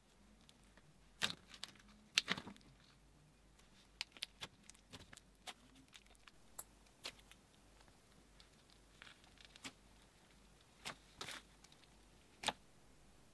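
Slime being squished and kneaded by hand, a clay-filled pancake slime mixed with clear slime, giving faint, irregular sticky clicks and pops. Two louder pops come about one and two seconds in.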